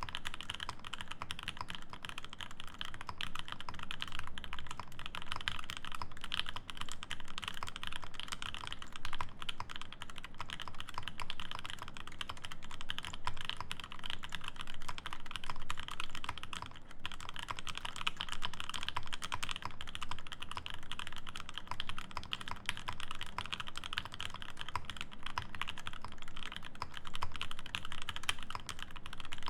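Steady, fast typing on an Acrylic Alice mechanical keyboard: a dense stream of key clicks from lubed, filmed Alpaca V2 linear switches in an acrylic plate under GMK keycaps.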